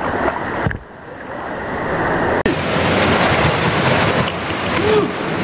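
Canyon stream water rushing down a narrow rock chute, a loud steady hiss. It cuts in suddenly about two and a half seconds in, after a quieter, muffled stretch.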